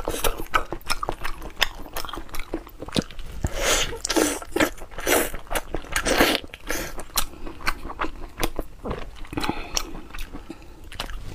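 Close-miked eating of braised beef knee (niu wo gu): biting, tearing and chewing the meat, with many irregular sharp, wet clicks and smacks.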